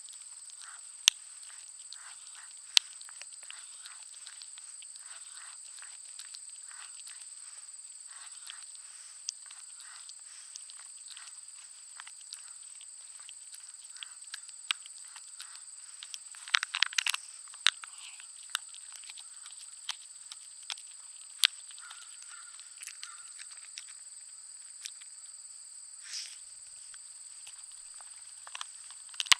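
A Schnauzer–pug mix dog gnawing and crunching on a bone: irregular sharp clicks and cracks, with a quick flurry of crunches a little past halfway. Behind it, insects keep up a steady high-pitched trill.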